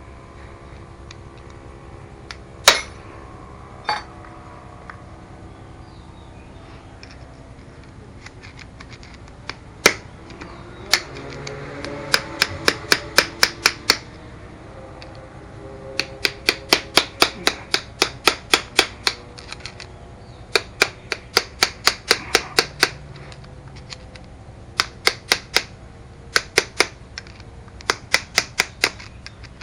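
Bursts of rapid, sharp metallic clicks or taps, about four to five a second, from hand tools working a stuck fastener loose on a Honda C70 engine during teardown. Two single heavier knocks come a few seconds in.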